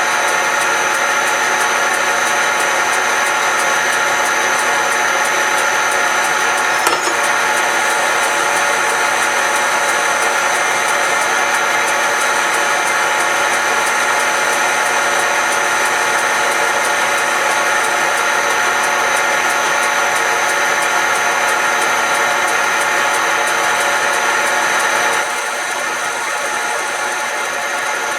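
Smart and Brown model L metal lathe running steadily with a constant whine while a high-speed steel cutting tool turns a wooden file handle. There is a single click about seven seconds in, and the sound drops a little near the end.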